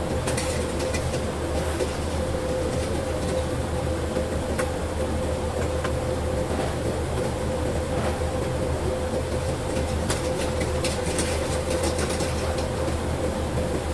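A machine runs steadily, a low hum with a constant whine held at one pitch, and scattered light clicks and ticks.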